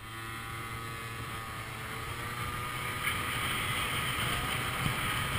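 Small motor scooter engine pulling away: its whine rises in pitch over the first two seconds, then holds steady as the scooter cruises, with wind on the microphone.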